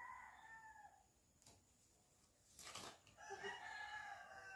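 A rooster crowing twice, faint and some way off, each crow a held call that falls away at its end. A short noisy rustle comes between the crows.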